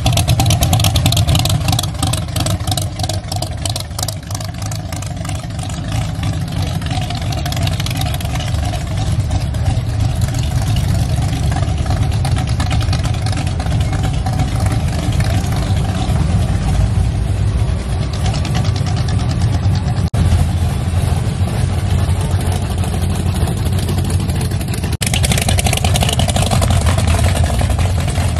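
A hot rod's engine running with a deep, loud exhaust rumble, its sound changing abruptly a couple of times near the end.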